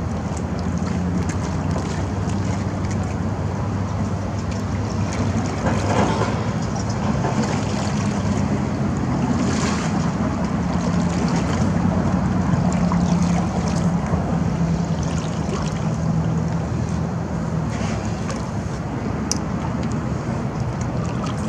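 Wind buffeting the microphone over water lapping, with a steady low hum underneath and a few splashes as a double-bladed kayak paddle dips into the creek.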